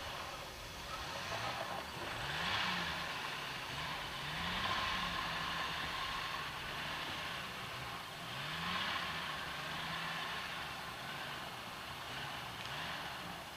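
Jeep Wrangler YJ engine running at low speed while rock-crawling, revving up in short bursts about four times as the driver feeds throttle to climb over rocks.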